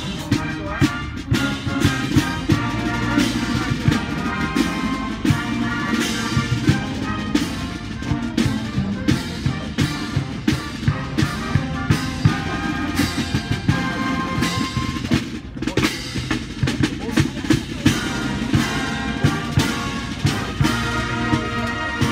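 Marching band playing: brass including sousaphones over a steady beat of snare and bass drums.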